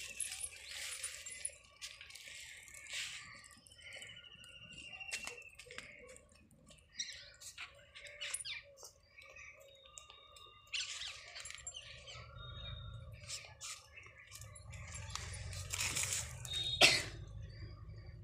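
Outdoor garden ambience: occasional bird chirps over scattered rustling and footsteps on dry ground, with a sharp click about a second before the end.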